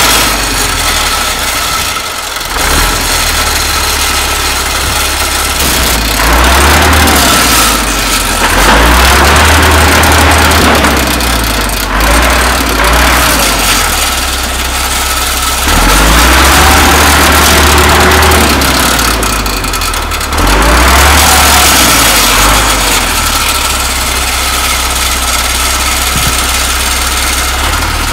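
Belarus T-40 tractor's air-cooled diesel engine revving hard in repeated surges, about five times, and dropping back between them while the tractor is stuck in mud.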